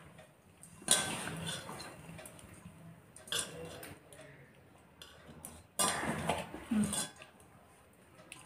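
Hands working a stiff, crumbly flour-and-ghee dough in a stainless steel bowl, with a few scrapes and knocks against the bowl's metal. The loudest come about a second in and again around six to seven seconds in.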